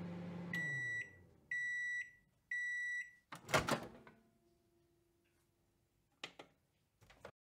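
Microwave oven: the running hum winds down and stops, then three high beeps about a second apart signal the end of the cooking cycle. A loud clunk follows as the door pops open, with a few faint clicks near the end.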